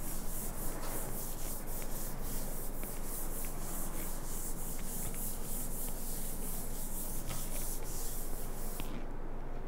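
Light, steady rubbing and brushing noise with scattered faint ticks, fading out shortly before the end.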